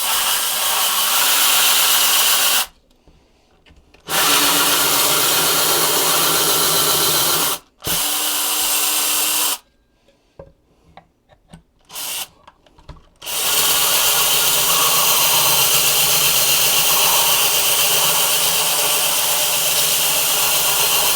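Electric drill boring a hole with a bit that is going dull, run in stop-start trigger pulls: three runs of a few seconds with short pauses, a brief blip, then a long steady run lasting about eight seconds.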